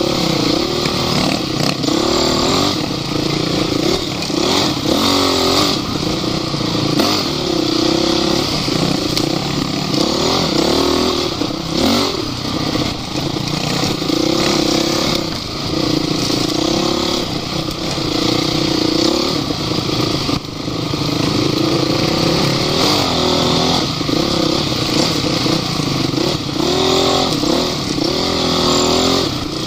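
Off-road vehicle engines running hard, revving up and falling back again and again.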